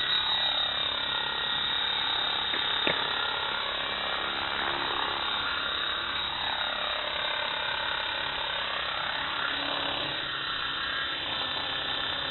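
Electric RC helicopter hovering and manoeuvring low: a steady whine from its motor and rotors whose pitch dips and rises several times as it moves. A single sharp tick comes about three seconds in.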